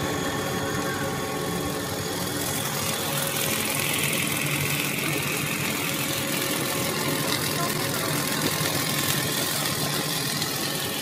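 Puffed-snack extruder line running: a continuous mechanical hum with several steady tones under a broad noisy wash, and a hiss that swells for a few seconds near the middle.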